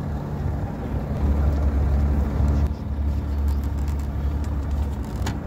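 Pontoon boat's outboard motor idling steadily, with low wind rumble on the microphone and a sharp knock near the end.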